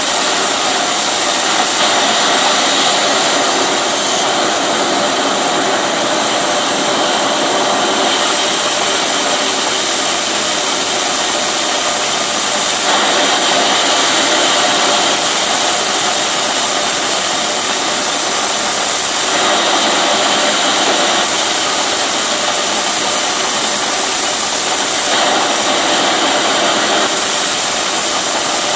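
Petrol chainsaw running at high speed, its tone shifting every few seconds.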